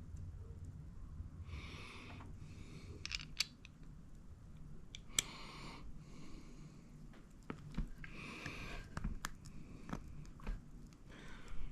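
A few sharp clicks and taps of small metal tool parts being handled, with soft rushing noises between them.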